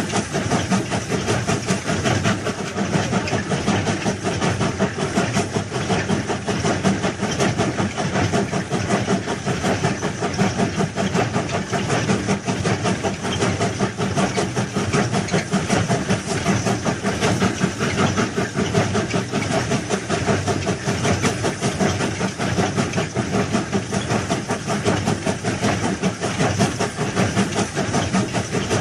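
Train running along the track: a steady, loud rumble and rattle of wheels and carriages on the rails.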